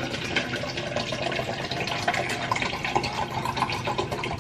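Water poured steadily from a plastic bottle into a plastic tumbler over ice cubes, a continuous splashing fill.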